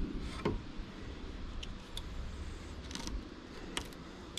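Knife work while filleting perch: scattered small clicks and scrapes of the blade on fish and cutting board, over a low steady background hum.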